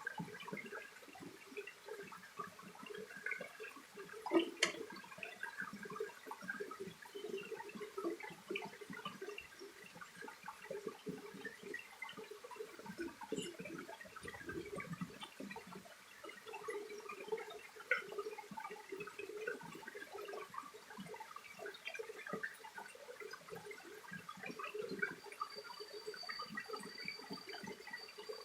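Mountain stream running and gurgling over rocks, a steady bubbling wash of water. A single sharp click sounds about four seconds in, and a thin steady high tone joins near the end.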